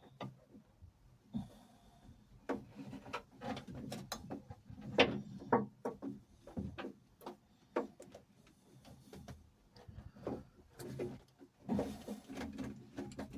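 Irregular knocks, clicks and rubbing from hands working on fuel pipework and its fittings, the sharpest knock about five seconds in.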